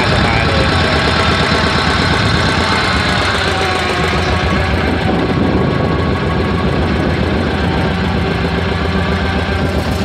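Engine of a small wooden river ferry boat running steadily while the boat is under way.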